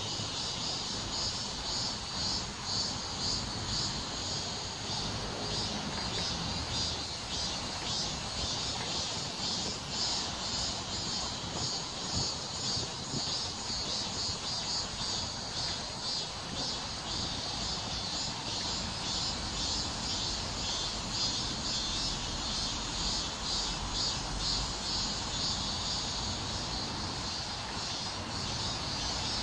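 Insects chirring in a steady, high-pitched, rapidly pulsing chorus over a low background hum.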